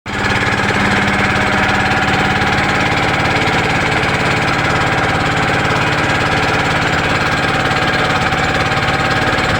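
A small engine running steadily at an even speed, its firing a rapid, regular pulse.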